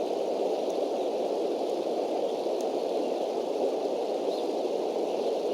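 A steady, even rushing noise picked up by a nest-cam microphone, with a few faint bird chirps in the distance.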